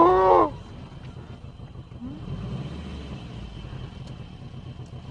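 A brief loud yell right at the start, then a car's engine running steadily at low revs.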